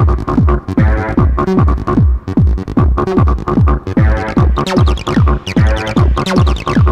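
Mid-1990s techno/trance track: a fast, steady kick drum, about two and a half hits a second, each hit dropping sharply in pitch, under synth chords. In the second half, high synth notes glide downward over the beat.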